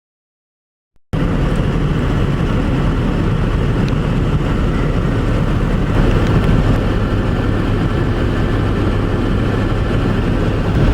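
Steady road and engine noise inside a moving truck's cab, cutting in abruptly about a second in.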